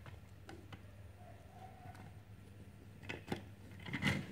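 Faint taps and clicks of fingers handling a plastic block-built toy train while a sticker is pressed onto its side, with a few slightly louder taps about three and four seconds in.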